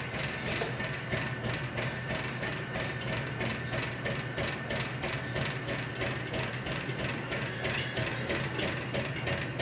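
Coin-operated popcorn vending machine running its cooking cycle: a steady low motor hum with a regular mechanical clicking, about three clicks a second, while the corn heats in the kettle before popping starts.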